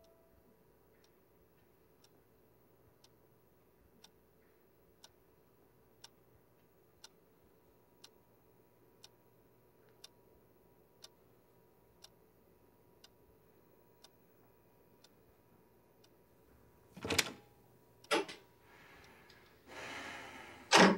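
Clock faintly ticking once a second in a quiet room. Near the end, two loud knocks, a short rushing noise and a final sharp knock.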